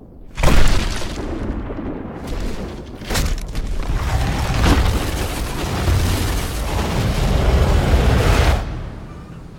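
Heavy rock crashing with a sudden boom about half a second in, then a long, deep rumble of moving stone with a few sharper knocks, dying away near the end.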